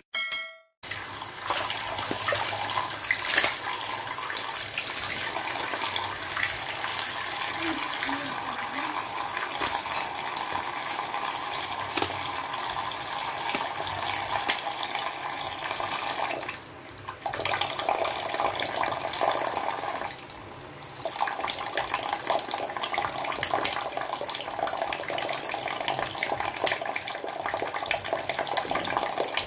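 Tap water running steadily onto fish in a tiled sink, with scattered small clicks as scissors cut and trim tilapia. The flow sound drops briefly twice, a little past the middle.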